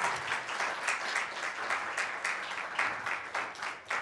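Small audience applauding, many hands clapping steadily at once.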